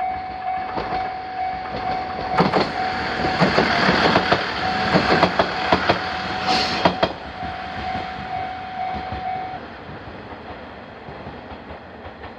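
Japanese level-crossing warning bell ringing in steady repeated dings while a train passes over the crossing. Its wheels clack over the rail joints from about two to seven seconds in, with a brief high squeal near the end of the pass. The bell stops about three-quarters of the way through, and the train's sound fades away.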